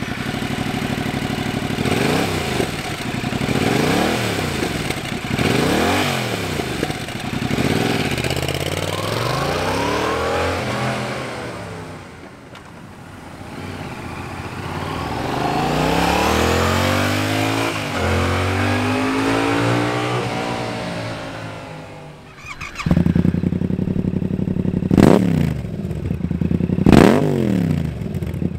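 2021 Yamaha R7's 689 cc parallel-twin engine revved through its stock exhaust, the note rising and falling with each rev. About 23 seconds in it cuts to the same engine through a Two Brothers Racing S1R stainless full-system exhaust, running with two short, sharp revs near the end.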